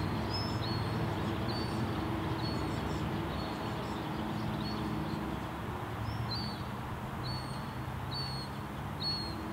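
Thin, high begging peeps of juvenile common gulls, each short and repeated about once a second, over a low steady hum.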